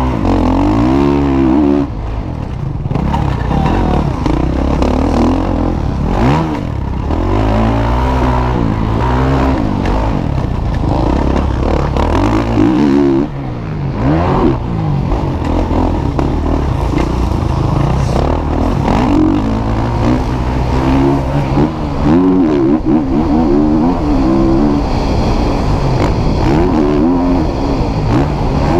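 Motocross bike engines running hard, their pitch climbing and dropping over and over as the throttle is worked and gears change.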